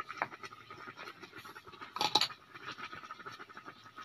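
Spice bottles handled over a pan: a few light clicks and taps of caps and containers, with a cluster of them about two seconds in. A faint steady high hum sits underneath.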